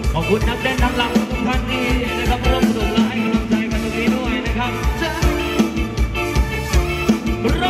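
Live Thai ramwong dance band playing: drum kit keeping a steady beat under electric guitars, with a singer's voice over the top.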